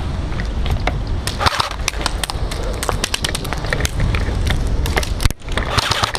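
Airsoft guns firing: a run of irregular sharp clicks and clacks over a steady low rumble, densest in the first half.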